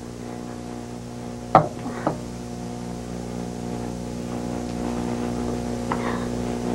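A steady low hum that slowly grows louder, with a sharp knock about one and a half seconds in, a softer one half a second later, and a faint tap near the end.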